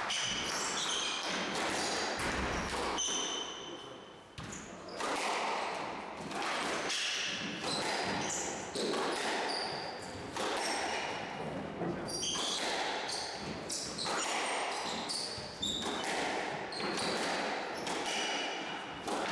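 Squash rally: the rubber ball cracking off rackets and smacking the walls and floor in a run of sharp, echoing hits, with shoes squeaking on the wooden court floor between them.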